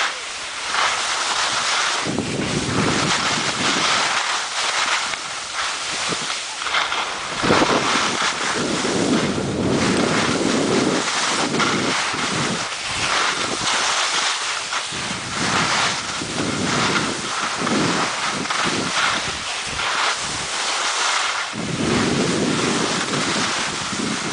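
Wind rushing over the microphone of a camera carried by a moving skier, swelling and easing in gusts, over a steady hiss of skis sliding and scraping on packed snow.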